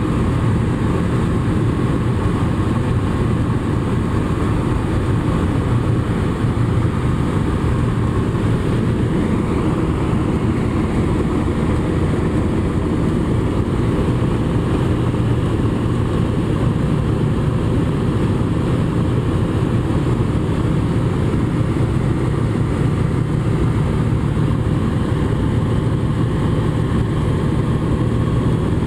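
Tecnam light aircraft's engine and propeller running steadily, heard from inside the cockpit during the approach to land.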